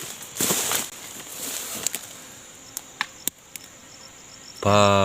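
Forest insects buzzing steadily at a high pitch, with a faint pulsing chirp under it and a few sharp clicks about three seconds in. Near the end a man makes a short, loud, drawn-out vocal sound.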